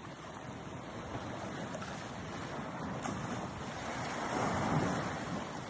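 Wind rushing over the microphone with water washing against the shore, a steady noise that swells a little about four seconds in.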